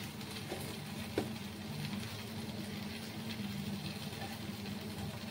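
Steady low mechanical hum, with a single light click about a second in.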